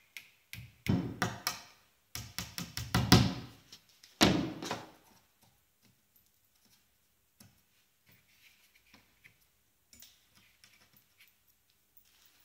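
Small hammer tapping small nails through a plywood sheet into the edge of a wooden frame: several runs of quick light taps in the first five seconds, then only faint handling ticks.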